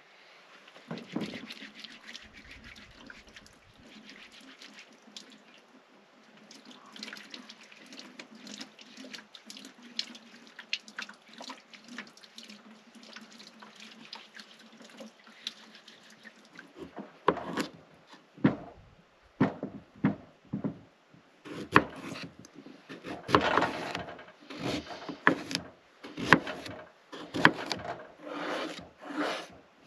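Water running from a water jug's spigot while sweet potatoes are rinsed and rubbed under it. About halfway through this gives way to a few knocks, then a knife cutting sweet potatoes on a wooden cutting board in repeated strokes.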